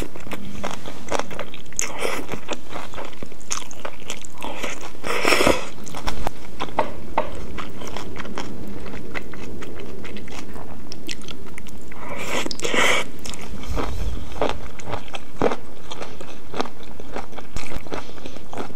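Close-miked eating sounds: noodles and snow fungus being bitten and chewed, with many wet clicks and crunches. Two longer slurps come about five and twelve seconds in.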